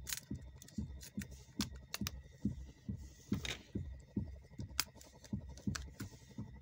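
Sharp plastic clicks and taps of a smartphone's circuit board and housing being handled and pressed together, over a regular low thumping about three times a second.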